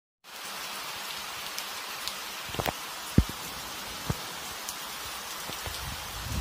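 Heavy rain pouring down, a steady hiss, with a few scattered sharp taps, the loudest about three seconds in.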